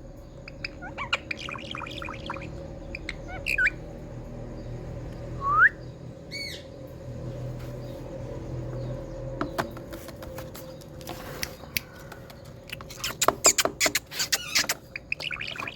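Indian ringneck parakeet calling: scattered short chirps and squawks, one loud rising whistle about five and a half seconds in, and a quick run of sharp calls near the end, over a faint steady hum.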